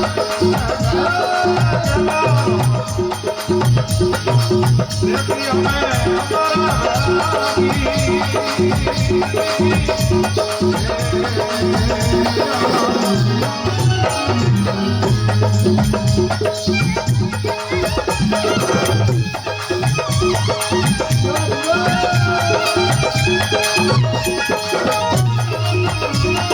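Marwari desi bhajan: Rajasthani devotional folk music with a steady percussion beat and shaken rattles under a wavering melody.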